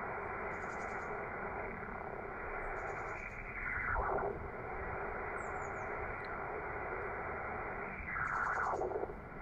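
Shortwave receiver static from a Yaesu FT-450D transceiver's speaker on the 80-metre band, tuned where no station is heard: steady, muffled hiss. Twice, about three and a half and eight and a half seconds in, a swish of noise sweeps down in pitch.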